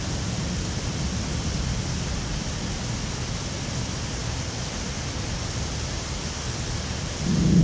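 Heavy thunderstorm rain falling steadily, a constant even hiss. Near the end a low rumble of thunder swells up.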